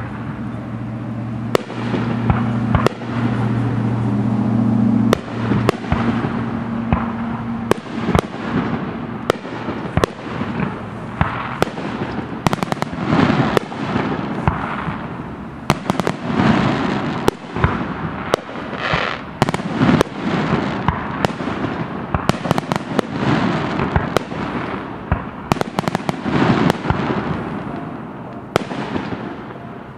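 Fireworks display: aerial shells bursting overhead in a rapid, continuous string of sharp bangs, most tightly packed in the second half.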